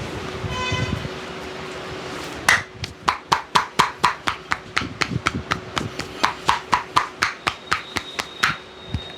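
Rapid rhythmic slaps and claps of a barber's hands striking a customer's head during a percussive Indian head massage. The strikes start about two and a half seconds in and run at roughly four to five a second. Just before, a brief pitched tone sounds for about half a second.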